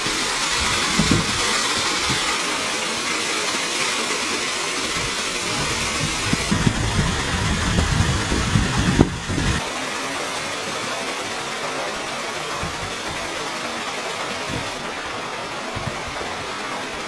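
Steady hiss of rushing water from a mountain waterfall, with wind buffeting the microphone in gusts partway through.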